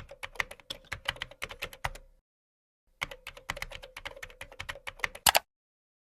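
Rapid typing on a computer keyboard, in two runs of clicking with a dead-silent pause of about a second between them, ending with a couple of louder keystrokes.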